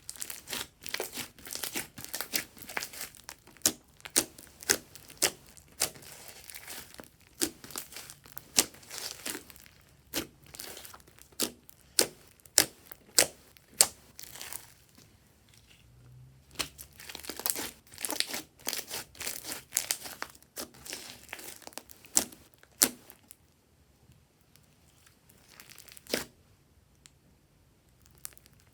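Glossy slime being kneaded, pressed and stretched by hand, giving runs of sticky crackles and sharp clicks. The clicking is dense through two long stretches and thins to a few scattered clicks near the end.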